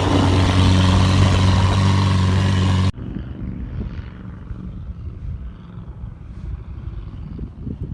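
A loud engine drone with a steady low hum that cuts off abruptly about three seconds in. It is followed by a quieter, uneven rumble with wind-like noise.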